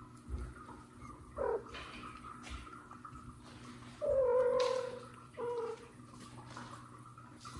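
Mother cat calling three times: a short meow, then a long, slightly falling meow of about a second, then another short one right after. Soft low thumps of paws moving on the floor between the calls.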